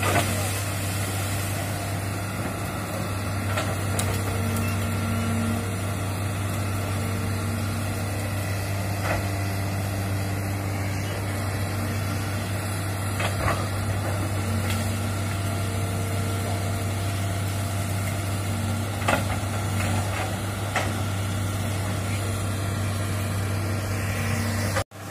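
Crawler excavator's diesel engine running steadily as it works into brush, with a few sharp cracks scattered through. The sound drops out briefly near the end.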